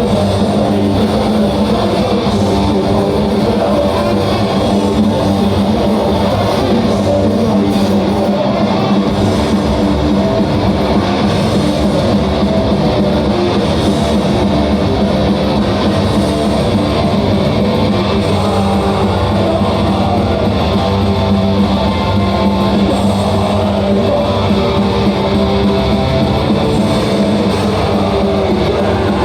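Heavy metal band playing live, loud and dense, with electric guitars to the fore.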